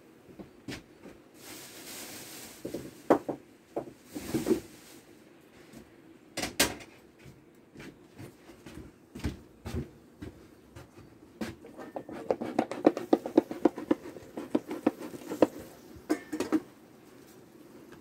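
Beekeeping work at an open wooden hive: scattered knocks, clicks and scrapes of handling on the frames, with a fast run of clattering scrapes near the end. There are two short hissing puffs at about two and four seconds in, over a steady low hum from the colony.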